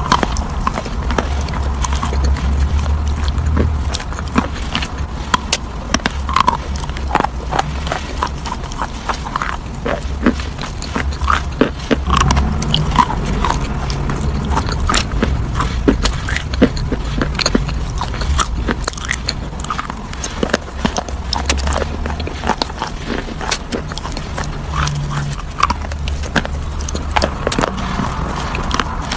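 Close-up chewing of crunchy food: a dense, irregular run of sharp crunches and crackles over low thudding from the chewing.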